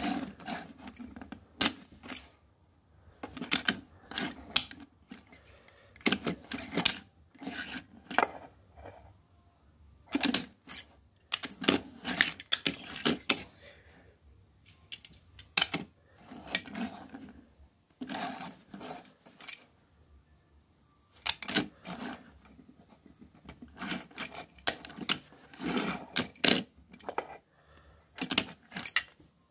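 Die-cast toy cars being handled on a wooden table: bursts of clicks, taps and small rattles as they are picked up, turned over and set back down, with short pauses between.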